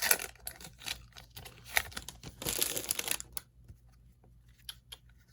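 Foil wrapper of a hockey card pack crinkling and tearing open in several short rustling bursts, the longest about two and a half seconds in, followed by faint clicks of the cards being handled.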